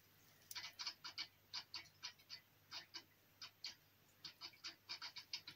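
Faint, irregular light clicks, about twenty in a few seconds, some coming in quick pairs.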